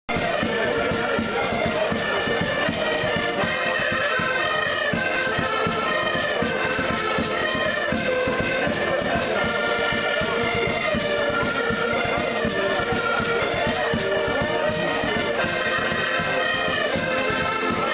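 An ensemble of accordions playing a tune together with a steady beat.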